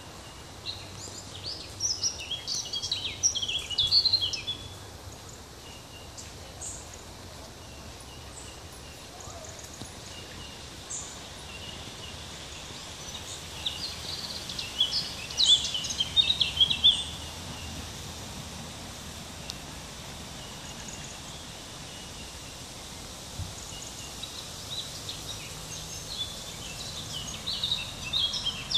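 Small songbird singing in three bursts of quick, warbling chirps, about a second in, in the middle and near the end. Under it runs a steady low background rumble.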